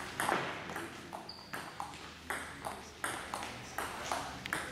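Table tennis rally: the ball clicking sharply off the players' bats and bouncing on the table, an even back-and-forth of about two to three hits a second. A brief high squeak sounds about a second in.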